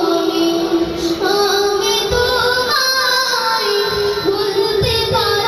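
A boy singing a Bengali gazal, a devotional song about mother, solo into a microphone, holding long notes that slide between pitches.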